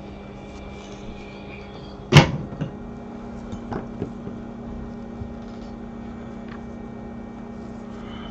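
A sharp knock about two seconds in, then a few lighter clicks, as tools and parts are handled on a repair bench, over a steady electrical hum from the bench equipment.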